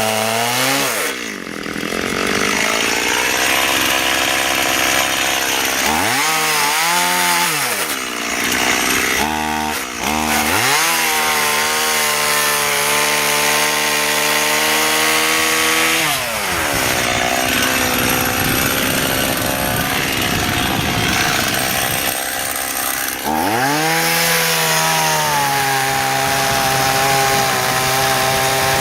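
Small Stihl MS 180 (018) two-stroke chainsaw cutting into a big hardwood trunk. Its engine pitch sags several times as the bar bites in and bogs under load, then revs back up. The saw is undersized for the job, a 12-inch bar on a 31-inch tree.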